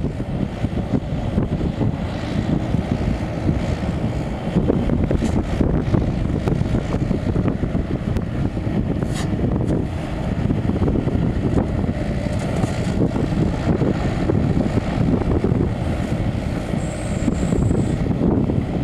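John Deere 60D mini excavator's diesel engine running steadily under load while its hydraulics drive the boom and bucket, digging in the ditch and swinging to dump the spoil.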